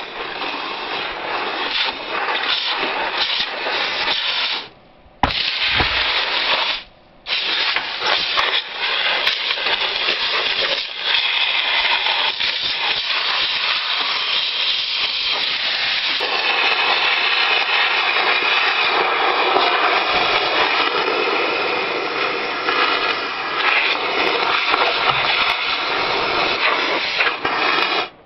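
Compressed-air blow gun with a long wand blasting hay chaff and dust out of a discbine mower's cutterbar: a loud, steady rushing hiss that stops briefly twice, about five and seven seconds in.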